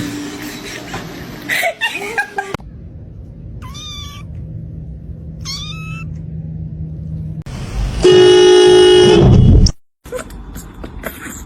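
A kitten meowing twice, with short high-pitched meows that bend in pitch. It is followed by a much louder cry, held on one pitch for about a second and a half, which cuts off suddenly.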